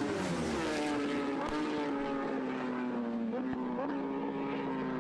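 Racing motorcycle engine at high revs. Its pitch falls sharply just after the start, then holds steady with a few brief upward blips.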